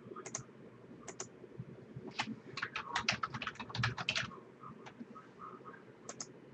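Keystrokes on a computer keyboard: a few scattered clicks, then a quick run of typing from about two to four seconds in, then a couple more clicks near the end.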